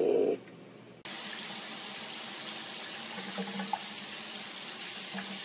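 A cat's yowl breaks off just after the start. About a second in, a shower starts to hiss steadily as its spray falls on a cat sitting in a bathtub, with a few faint short sounds under the hiss.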